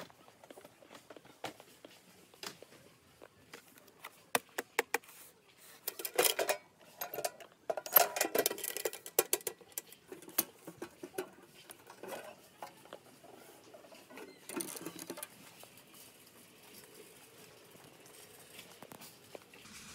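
Handling noise from a hand on metal ammo-can-style storage boxes: scattered light clicks and taps, with a dense clatter from about six to nine seconds in and a shorter one near fifteen seconds.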